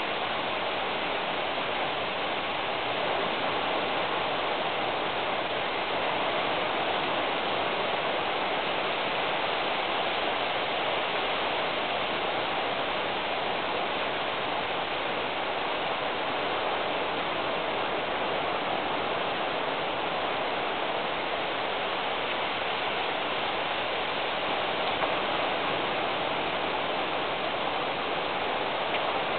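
Steady, even hiss with no distinct events or tones.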